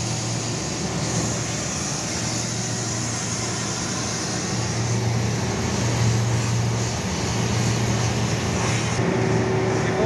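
Pressure washer running, its water jet hissing steadily against an air-conditioning condenser coil over a steady low hum. The hiss drops away about a second before the end.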